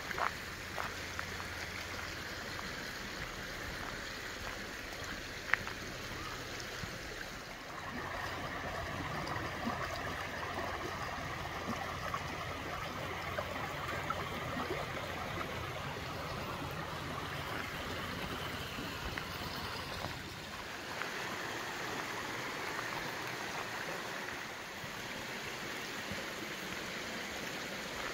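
Running water of a stream, a steady rushing. Its character changes abruptly about 8 and 20 seconds in, and there are a few faint clicks early on.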